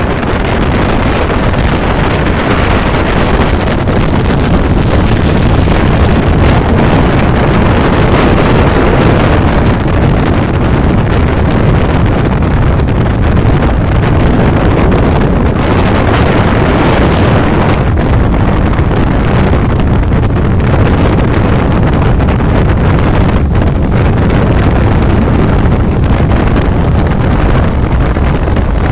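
Wind noise from riding a motorcycle at highway speed, a steady loud buffeting on the microphone with engine and road noise mixed in.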